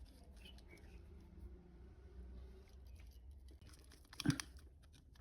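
Faint clicks and rustling of hands fitting a wire into a relay base terminal, over a low steady hum, with one louder knock about four seconds in.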